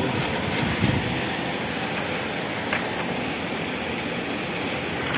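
Steady background noise of a busy supermarket, a constant even hiss and hum with no distinct events.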